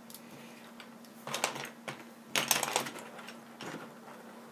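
Plastic LEGO bricks clicking and rattling as hands rummage through a pile and press pieces together, in two short clusters of clicks about a second and a half and two and a half seconds in, with a lighter one near the end. A faint steady hum runs underneath.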